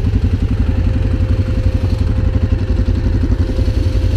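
Quad bike (ATV) engines idling steadily while stopped, a rapid even low pulsing with a faint steady tone above it.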